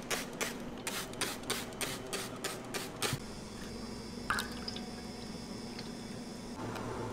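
About ten sharp taps in a steady rhythm, roughly three a second. Then a thin stream of liquid is poured into a steel bowl of cracked eggs, dripping and splashing.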